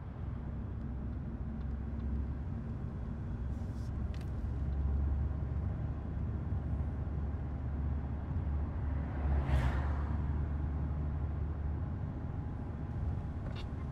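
A 2000 Mercedes-Benz convertible driving with its top down: steady low engine and road rumble. About two-thirds of the way through comes a brief rush of noise, like a vehicle going by.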